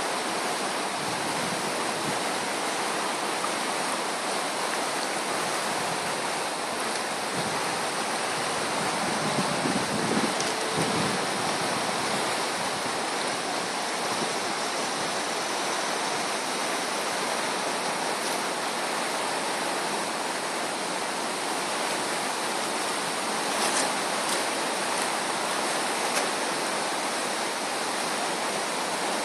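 The Passaic River in flood, swollen by Hurricane Irene: fast, high, churning brown water rushing steadily in an even, continuous noise.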